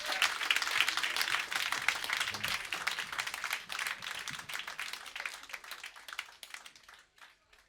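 Audience applause and clapping after a live rock song, growing steadily quieter and thinning to a few scattered claps near the end.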